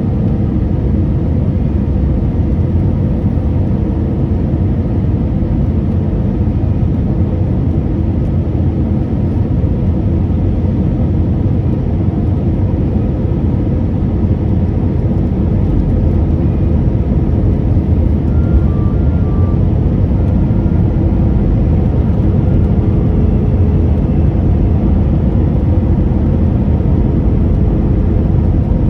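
Steady airliner cabin noise in flight: an even, deep rumble of engines and airflow that holds unchanged.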